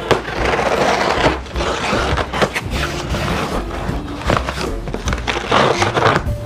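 Large cardboard shipping box being opened by hand: packing tape ripping and cardboard flaps scraping and crackling, with many sharp clicks and a few longer tearing stretches.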